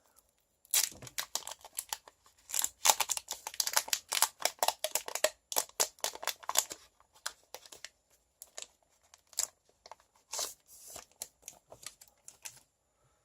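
Foil booster-pack wrapper crinkling and tearing as a Pokémon trading card pack is opened by hand: a dense run of crackles for the first several seconds, then sparser crinkles and rustles.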